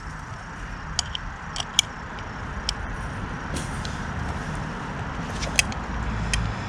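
A few sharp metallic clicks and ticks from an Allen wrench turning a floorboard mounting screw, over a steady low rumble that slowly grows louder.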